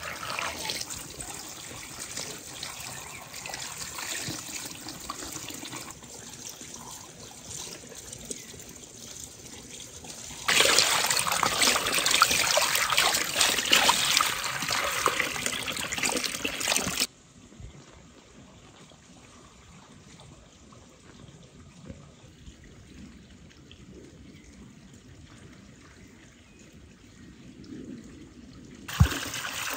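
Water pouring from a wooden spout into a metal basin while hands rub and turn apricots in it: steady splashing and trickling, much louder for several seconds in the middle. It cuts off abruptly to a quiet outdoor background, broken near the end by a single sharp knock.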